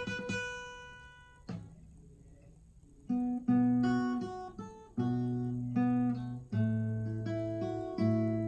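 Acoustic guitar background music. A picked passage dies away, a lone note sounds about a second and a half in, and after a short near-quiet gap, strummed chords start about three seconds in.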